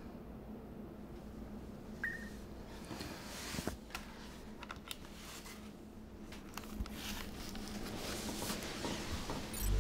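Quiet room tone with a low hum, broken by scattered small clicks and handling sounds and one short high electronic beep about two seconds in.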